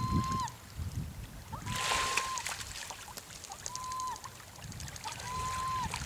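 A large gull calling four times, about a second and a half apart: long, level-pitched cries, each with a short rise at the start and a quick drop at the end. A brief hiss of noise comes about two seconds in.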